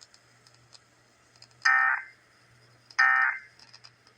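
Two short, shrill bursts of Emergency Alert System SAME digital data tones, about a second and a half apart, sent as the end-of-message code after the test announcement.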